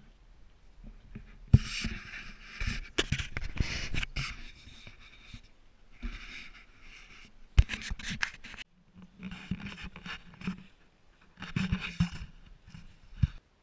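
Camera handling noise: irregular scraping and rustling close to the microphone, broken by several sharp knocks, starting about a second and a half in and cutting off at the end.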